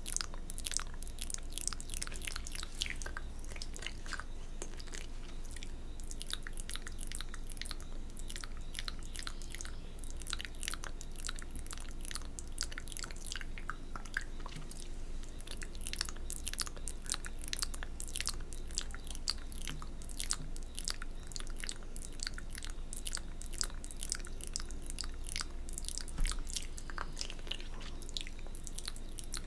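Close-miked wet mouth sounds: lips and tongue licking and smacking on fingers in ASMR spit painting, a dense, irregular run of small sticky clicks.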